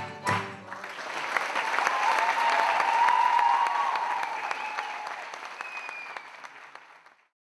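The last strummed chords of a student tuna's acoustic guitars, mandolins and accordion, then audience applause with a drawn-out cheer in the middle. The applause fades away and cuts off just before the end.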